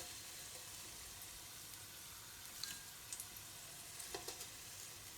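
Hot oil sizzling quietly in a pan where scallions and garlic have been fried, with a few light clicks here and there.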